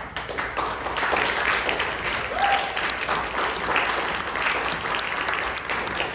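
Small audience applauding with steady clapping.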